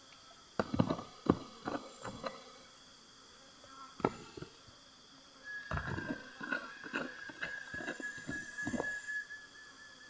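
Irregular knocks and scrapes of digging in the ground. A steady high insect whine comes in a little past halfway, over a constant thin, very high insect tone.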